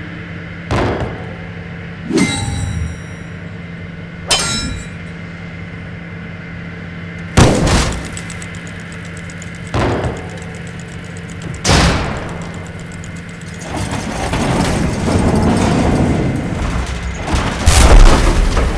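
A series of heavy booming hits and metallic clangs, about seven spaced a couple of seconds apart over a steady low hum, the second and third leaving a ringing tone. A rumbling swell builds in the last few seconds before a final heavy hit near the end.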